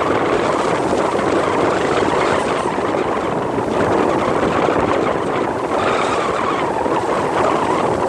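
Steady rushing of wind and foaming water along the side of a moving ferry.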